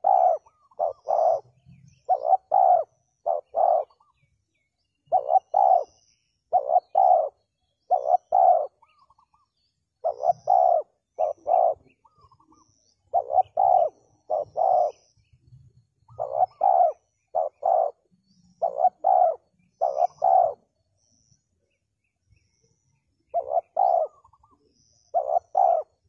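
Spotted dove cooing: repeated phrases of two or three short, low coos, each phrase followed by a pause of a second or two, with a longer silence a little before the end.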